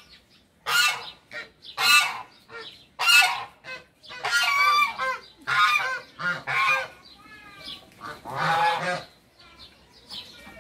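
Domestic geese honking, loud calls repeating about once a second, with a run of calls around the middle and quieter calls near the end.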